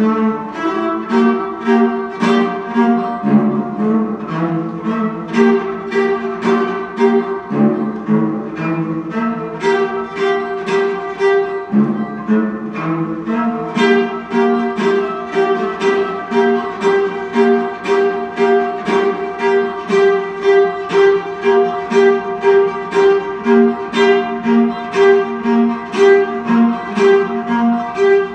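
Cello played live, bowing a repeating figure of short notes in an even pulse of about two strokes a second.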